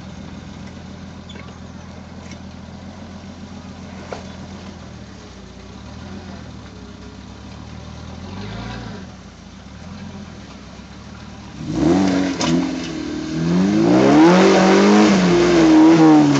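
Suzuki SJ413's 1.3-litre four-cylinder petrol engine ticking over at low revs while crawling on rock, with a single knock about four seconds in. About twelve seconds in it revs up hard, its pitch rising and falling, and it is loudest near the end as the jeep climbs the steep rock step.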